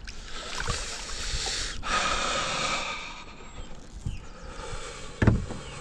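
A man breathing hard and gasping in excitement while a largemouth bass is lifted out of the water by its lip, with water splashing and a thump about five seconds in.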